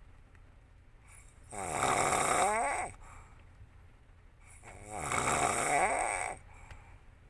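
A woman snoring in deep sleep: two long, rattling snores about three seconds apart, the pitch of each rising and falling. The low rumble of the moving vehicle runs underneath.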